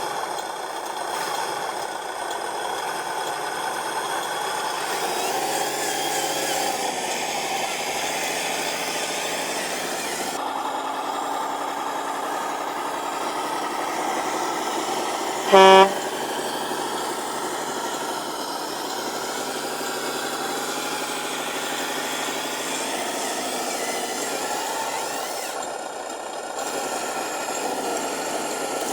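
Radio-controlled model truck running steadily, its pitch shifting a few times, with one short, loud horn honk about halfway through.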